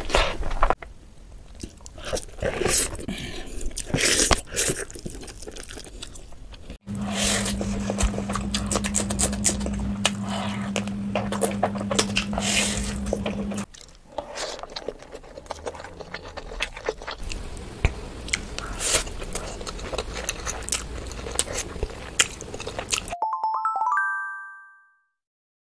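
Close-miked mukbang eating sounds: chewing, crunching and smacking of chicken biryani eaten by hand, in several clips cut together, with a steady low hum under the middle clip. Near the end a short rising chime plays, then sound stops.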